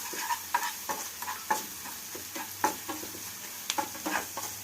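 A spoon stirring and scraping grated ginger, jaggery and ghee being fried into a paste in a pan, with irregular knocks and scrapes against the pan over a light sizzle.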